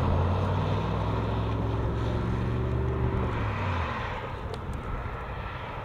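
Low, steady drone of a vehicle engine on the highway that ends fairly abruptly about four seconds in, leaving an even rushing noise of traffic and wind.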